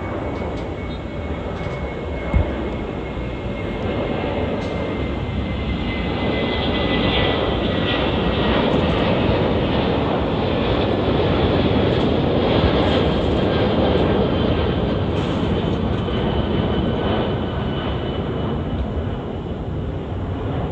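Jet airliner's turbofan engines roaring as it departs, the noise swelling to a peak partway through and then easing, with a faint engine whine slowly falling in pitch. A single brief knock sounds about two seconds in.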